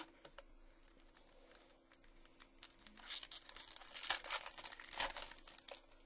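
Foil wrapper of a football card pack being torn open and crinkled by hand. Scattered crackles thicken into dense crinkling about halfway through, which is loudest for the next couple of seconds.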